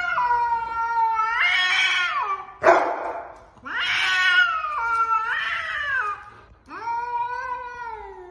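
Domestic cat yowling: three long, drawn-out wailing calls that bend up and down in pitch, with a short harsh rasping sound between the first two.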